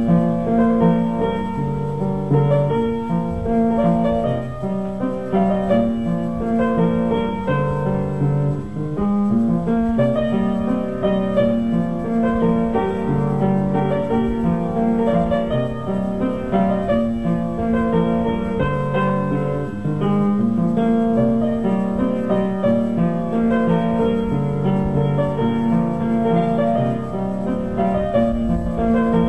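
Ambient black metal keyboard music: a keyboard playing a melody over held low notes, with little treble.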